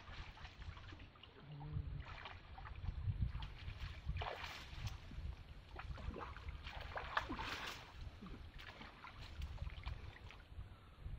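River water splashing and sloshing as a man surfaces from a dive and moves about in chest-deep water, over a steady low rumble. The splashes come in irregular bursts, loudest around the middle and again a little later.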